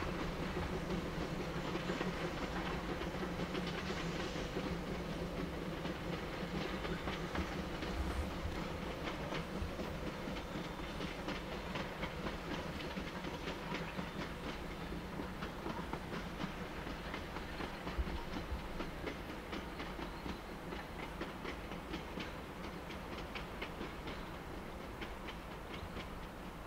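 Steam-hauled passenger train running on the rails: a steady rumble with rapid clicking of wheels over the rail joints, growing slightly quieter toward the end.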